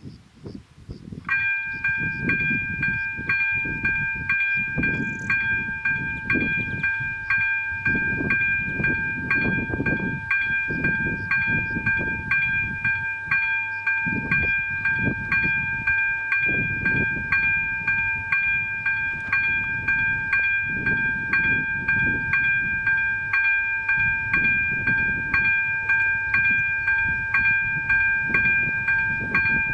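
Czech level crossing's electronic warning bell starting up about a second in and ringing with an even, rapid strike, signalling that the crossing is closed for an approaching train. Gusty wind rumbles underneath.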